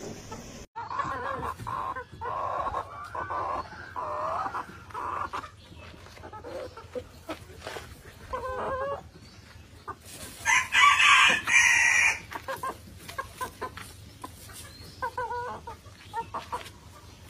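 Cochin bantam chickens clucking in a run of short calls, with one loud rooster crow about ten seconds in and scattered clucks after.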